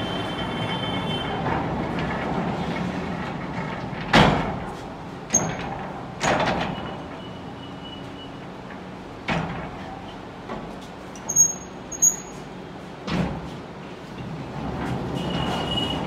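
A steady mechanical rumble for the first few seconds, then a string of separate sharp knocks spaced a second or more apart, with a couple of short high squeals between them; the rumble comes back near the end.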